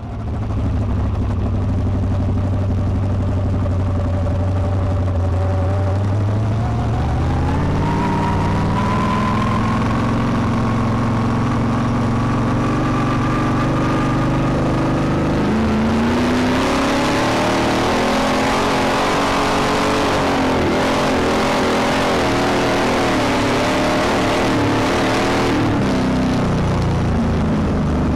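Winged sprint car's V8 engine heard on board from the cockpit. It runs low and steady, then climbs in pitch about six seconds in to a higher, steadier note. From about halfway the revs rise and fall again and again, with more rushing noise over the engine.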